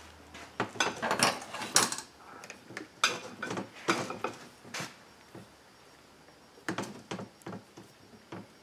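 Small metal outboard-motor parts clinking and knocking as they are handled, in quick clusters about a second in and again around three to five seconds, then a few scattered clicks.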